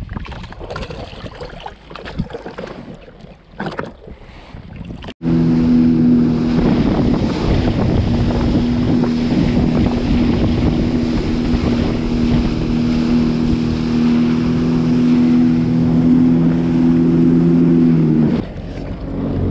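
Wind on the microphone and gusty water noise. About five seconds in, this cuts abruptly to a Sea-Doo GTX jet ski running at speed, a steady engine hum over the rush of water and spray. The engine drops off about a second before the end.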